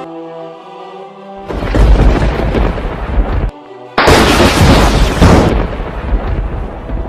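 Intro music: a held synth chord, then two loud booming, rumbling sound effects, the second fading away near the end.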